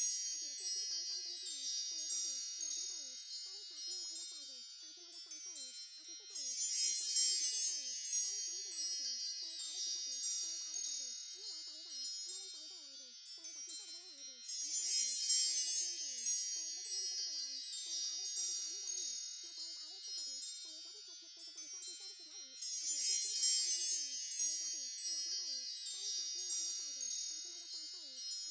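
Wind chimes tinkling continuously in a looped recording that swells again about every eight seconds. Underneath runs a much fainter layer of quick, wavering tones.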